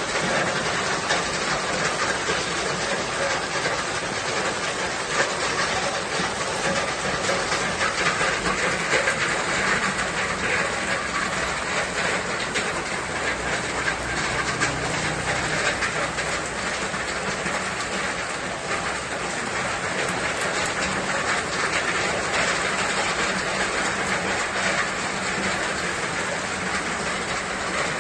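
Steady rain falling: an unbroken hiss of dense patter from many drops, even in level throughout.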